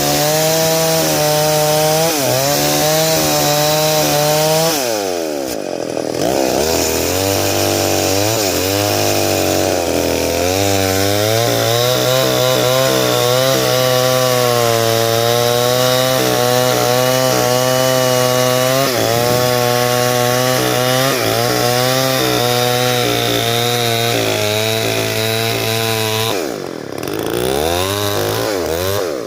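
Stihl 070 two-stroke chainsaw running under load while ripping a log lengthwise into beams. Its revs drop sharply and then climb back twice, about five seconds in and near the end.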